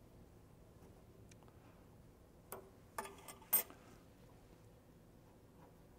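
Faint metal clicks and taps from a hex key and fingers working a bandsaw's upper guide-bearing block as a side guide bearing is set against the blade and locked down: one click about two and a half seconds in, then three in quick succession, the last the loudest.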